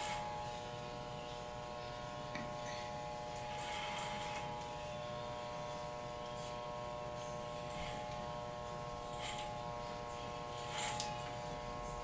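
Wahl Balding electric hair clipper buzzing steadily as it cuts a flat top, with a few short, louder rasps about 4, 9 and 11 seconds in.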